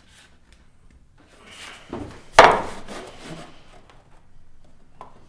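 Wood being handled on a workbench: a sliding rub and a thump, then a sharp wooden knock about two and a half seconds in that rings briefly, and a light tap near the end.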